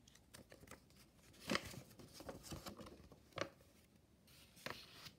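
Folded paper instruction sheet being handled and moved, faint rustling and crinkling with several sharper crackles, the loudest about a second and a half in and again past three seconds.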